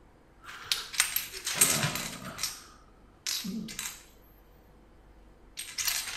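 Loose plastic keycaps clattering and rattling against each other and a countertop as hands rummage through a pile of them, in two short bursts, then a pause, then more clatter near the end.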